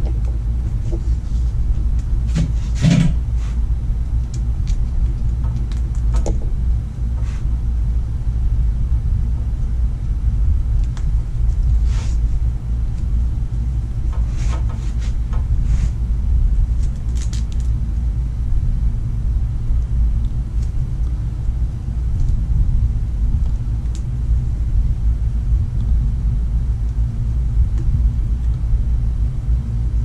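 A steady low rumble, with scattered crinkles and clicks of split plastic wire loom being worked onto a wiring harness by hand, the loudest about three seconds in.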